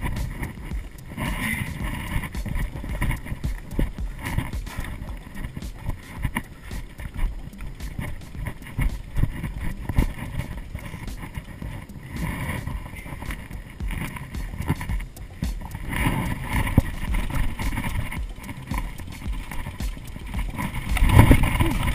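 Mountain bike clattering down a rough, rocky trail, heard from a camera mounted on the bike: a constant jumble of knocks and rattles over a low rumble, getting louder near the end.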